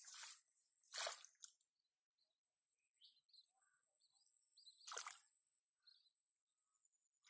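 Hands groping in shallow muddy water: three short wet squelches and splashes, the last about five seconds in, with faint bird chirps between them.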